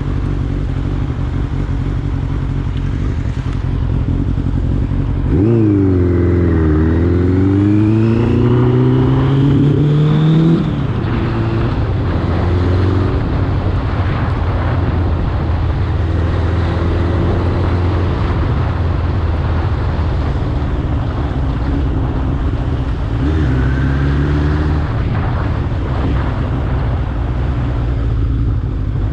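Suzuki GSX-R streetfighter's carbureted inline-four engine running on the road with wind rushing past. About five seconds in the revs dip, then climb steadily for about five seconds under acceleration and fall back. A shorter rise in revs comes near the end.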